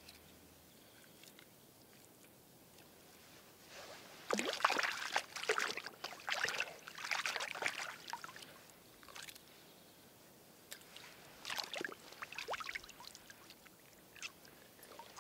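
Lake water splashing and sloshing as a freshly caught rainbow trout is rinsed by hand in the shallows, in two spells: a longer one starting about four seconds in, and a shorter one around twelve seconds.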